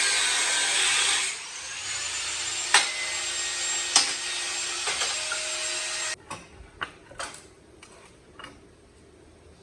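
A power tool runs steadily, cutting or grinding, with two sharp clicks along the way, and stops about six seconds in. Scattered light knocks and clicks of tool handling follow.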